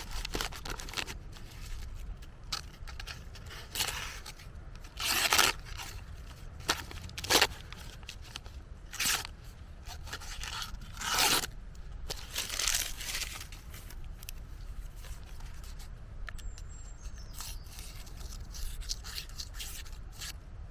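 Victorinox Swiss Army knife blade making short scraping strokes at irregular intervals, one every second or two, louder in the first half and fainter towards the end, as the freshly honed edge is worked.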